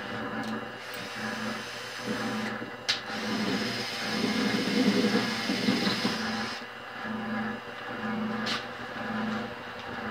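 Small bench lathe running, its tool taking a facing cut across a metal part, while a cordless drill drives the cross-slide feed screw as a power feed. The drill's whine stops about two-thirds of the way through, and the lathe keeps running.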